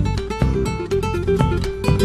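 Acoustic guitar music: strummed chords with sharp, percussive strokes among plucked notes.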